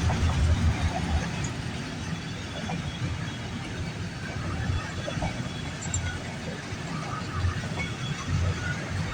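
Freight train rolling past: a steady rumble of wheels on rail and passing cars, with an uneven low throb.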